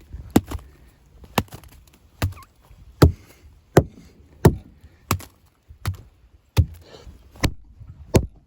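Mallet blows knocking soft, rotted sapwood off the edge of a sawn white oak slab: a steady series of sharp knocks, about one every three-quarters of a second.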